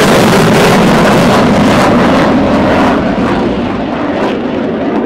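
F/A-18 Hornet's twin jet engines making a loud, rushing roar on a fast low pass. The roar falls off about three seconds in as the jet moves away.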